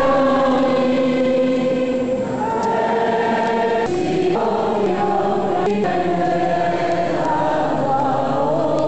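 Choir singing a slow hymn with long held notes, inside a church.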